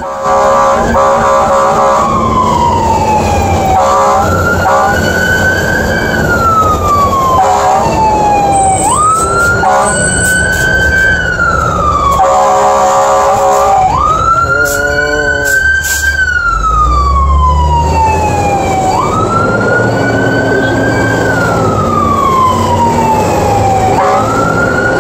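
Fire engine siren on a slow wail, climbing quickly and then falling away over about five seconds, again and again, heard from inside the cab over the truck's engine. Short blasts of a horn come several times between the wails.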